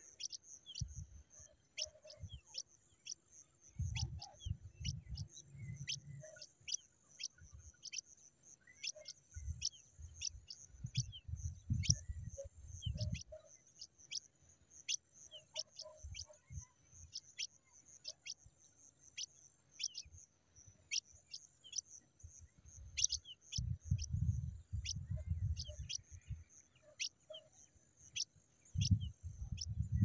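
Pipit nestlings begging: thin, high-pitched chirps, each falling in pitch, in an irregular run of about two a second over a faint steady high hiss. Low rumbles come and go in several stretches.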